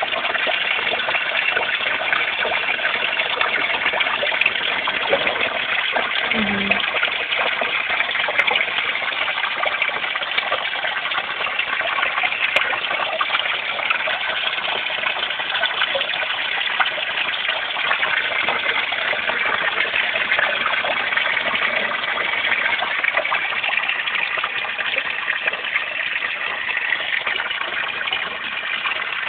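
Steady rush of running water splashing into a fish pond, an even hiss with no breaks.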